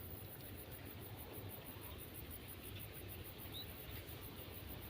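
Insect chirping high and steady, about five pulses a second, over a low rumble. One short rising chirp comes about three and a half seconds in.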